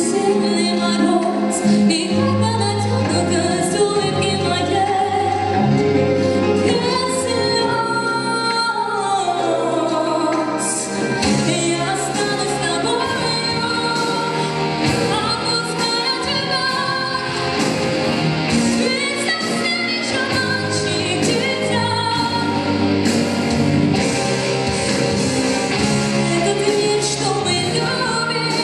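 A song with a woman singing over backing music; the voice holds and glides between notes.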